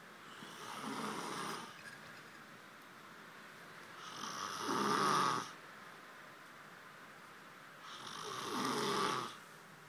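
A sleeping man snoring: three long snores about four seconds apart, each swelling in loudness and then stopping abruptly.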